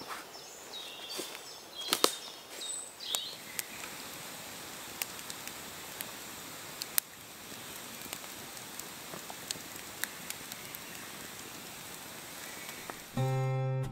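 Woodland ambience: a steady outdoor hiss with birds chirping in the first few seconds and scattered sharp snaps and cracks throughout. Acoustic guitar music comes in just before the end.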